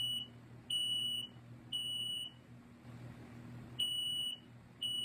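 i12060A smoke alarm's piezo sounder beeping in the temporal-three evacuation pattern: half-second beeps, three to a group, with a pause between groups. The tone is low-pitched for a piezo.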